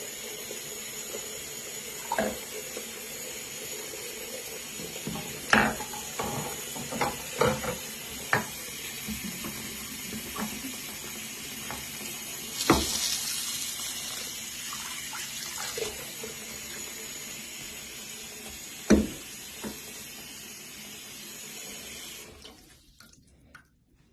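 Water running steadily from a tap, with a few sharp knocks and clinks along the way, then shut off near the end.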